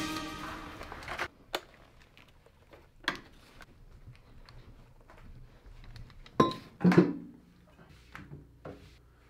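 Rock music fading out in the first second. Then scattered light clicks and knocks of objects being handled and set down on hard surfaces, with two louder knocks about six and a half and seven seconds in.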